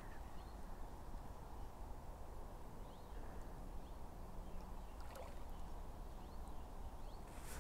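Faint outdoor background by open water: a steady low rumble, with a few faint short chirps and ticks.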